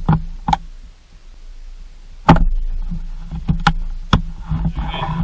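Sharp clicks and knocks from handling tools and parts while wiring a switch, the loudest a bit over two seconds in, over a steady low hum.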